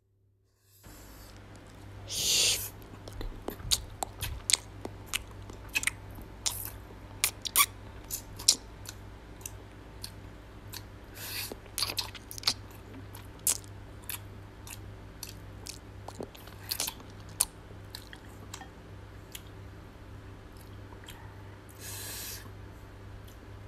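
Close-miked eating of barbecued chicken wings with melted cheese and rice: wet chewing and lip-smacking, with sharp mouth clicks coming irregularly. There are two short breathy hisses, one about two seconds in and one near the end, over a steady low hum.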